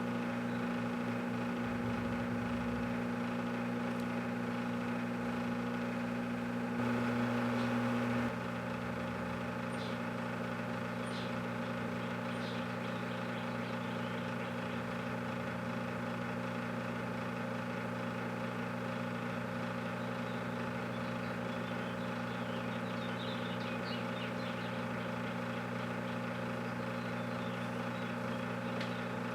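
Microwave oven running with a steady hum, briefly louder and fuller for a second or so about seven seconds in, with a few faint ticks now and then.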